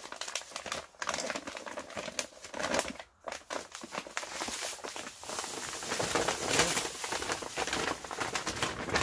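Heavy paper sugar sack rustling and crinkling as it is lifted and opened, then white granulated sugar pouring into a plastic bucket with a steady hiss from about five seconds in.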